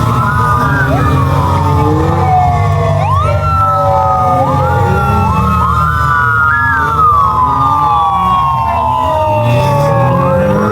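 Several police motorcycle sirens wailing together out of step, each rising quickly and then falling slowly, over the steady low rumble of the motorcycles' engines.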